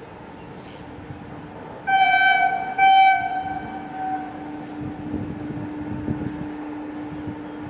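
WAG-7 electric locomotive sounding its horn in two blasts about two seconds in, the first longer than the second, the sound trailing off for a moment afterwards. A steady low hum runs underneath, and the rumble of the approaching freight train grows in the second half.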